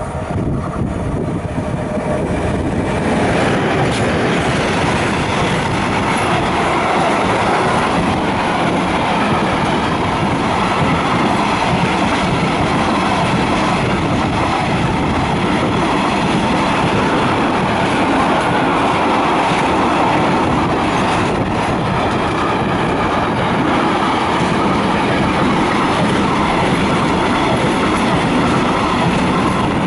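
Container freight train headed by an ET22 electric locomotive running through at speed, its wheels rolling on the rails as the wagons pass close by. It grows louder over the first three seconds, then stays loud and steady.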